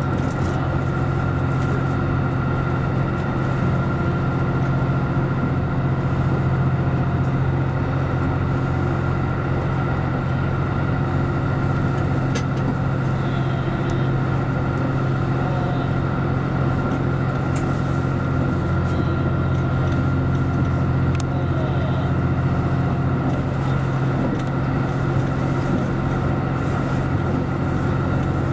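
Series 85 diesel railcar running steadily at speed, heard from inside the front car: a constant diesel engine drone mixed with wheel and rail noise.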